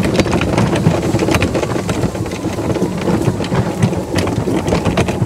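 High grass and weeds swishing and brushing against a 48-volt electric golf cart's body and windshield as it pushes through, with a steady clatter of knocks and rattles from the cart's loose roof and hardware.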